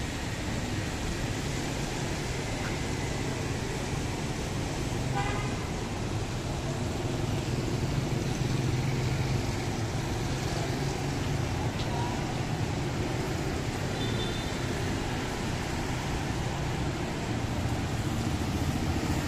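Steady city street traffic: vehicle engines running and passing, with a short horn toot about five seconds in.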